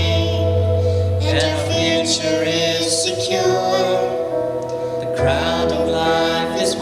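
Gospel song sung over instrumental accompaniment, with long held bass notes under the vocals.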